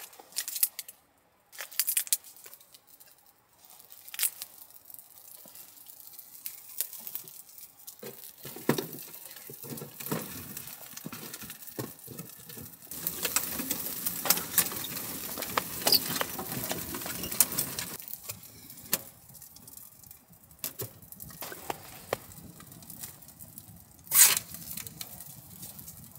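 A fire being lit in a small titanium wood stove: kindling handled and rustled, then the fire catching and crackling for several seconds. A single sharp knock near the end.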